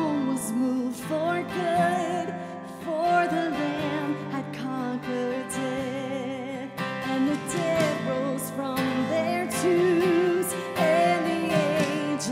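A worship song: a woman sings long held notes with vibrato over a strummed acoustic guitar.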